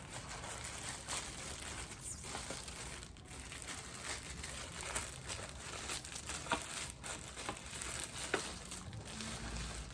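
Crinkling and rustling of a small package being handled, with scattered light clicks and taps.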